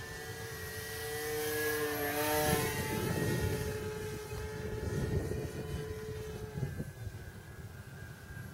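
Brushless electric motor and propeller of a Multiplex FunCub RC plane flying past overhead: a steady whine that swells to its loudest about two and a half seconds in, dipping slightly in pitch as it passes, then fades away.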